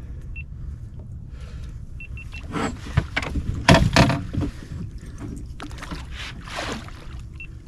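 Water splashing and sloshing at the boat's side as a netted muskellunge thrashes in the landing net, with the loudest splashes a few seconds in.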